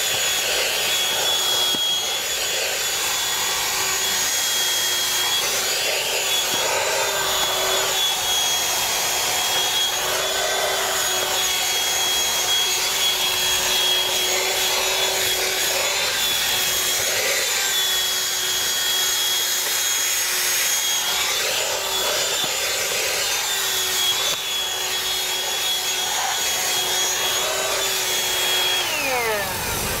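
Black & Decker PAV1205 12-volt handheld car vacuum running with a steady high whine while its nozzle rubs along the floor carpet. Near the end the motor is switched off and the whine slides down as it spins to a stop.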